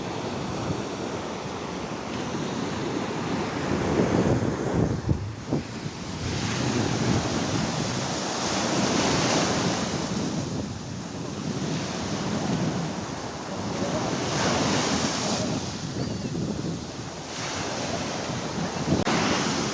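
Sea waves washing in, swelling and easing every few seconds, with wind buffeting the microphone.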